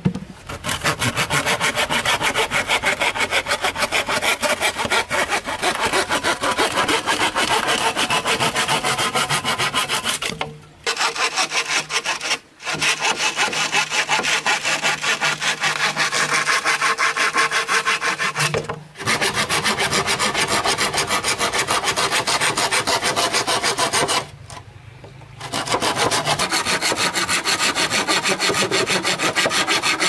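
A hand saw cutting through bamboo: rapid, steady back-and-forth strokes that stop briefly a few times and resume.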